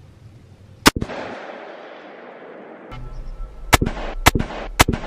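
Scoped hunting rifle shots, sharp cracks each with a short echo: one about a second in, then three in quick succession near the end, over background music.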